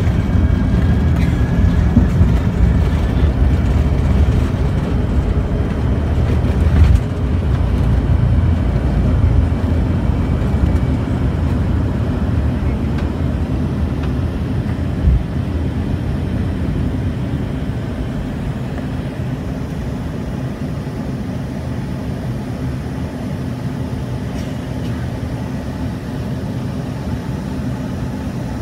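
Cabin noise of an Embraer ERJ-145 on its takeoff run and climb-out: its rear-mounted turbofans run at takeoff power over loud runway rumble, with a faint rising whine near the start. A thump about seven seconds in is followed by the rumble dropping away, and a smaller thump comes about fifteen seconds in. The noise then settles into a steadier, gradually quieter engine drone as the jet climbs.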